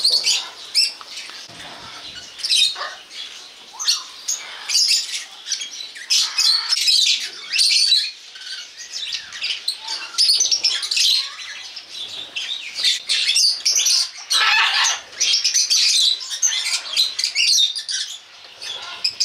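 Many birds chirping and squawking over one another in a dense, continuous chorus of short calls.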